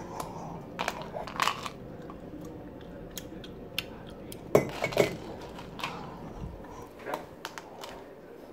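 Scattered light clicks and knocks of things being handled in a kitchen, with two louder knocks about halfway through, half a second apart.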